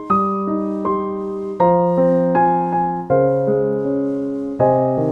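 Background music: piano chords struck about every second and a half, each ringing and fading before the next.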